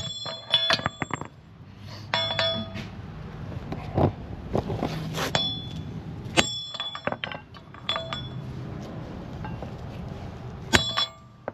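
Metal tools striking and clinking against steel, in several short clusters of sharp hits that each ring briefly, while a wide socket seats a pressed-in wheel bearing.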